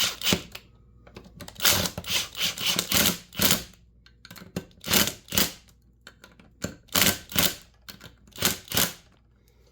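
Irregular clicking and clattering of small metal parts and hand tools as the carburetor mounting bolts are started and tightened on a chainsaw. The clicks come in quick bunches of several a second, with short pauses between.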